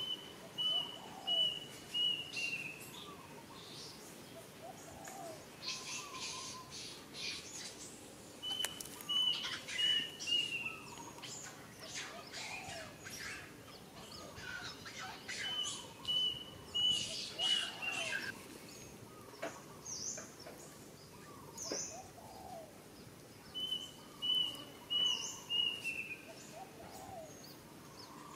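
Birds calling: one repeats a short phrase of about five quick, even notes that dip at the end, four times at regular intervals of seven to eight seconds, with other scattered chirps in between.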